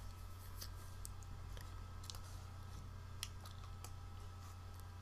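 A few faint, sharp clicks at a computer, spread irregularly over a low steady hum.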